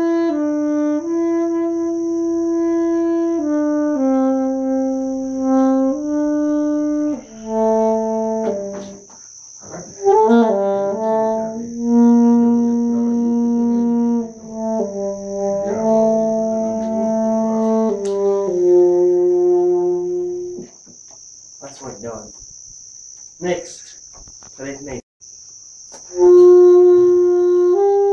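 Alto saxophone playing a slow melody of long held notes. About two-thirds of the way through the playing stops for around five seconds, with only a few brief sounds, then the held notes resume near the end.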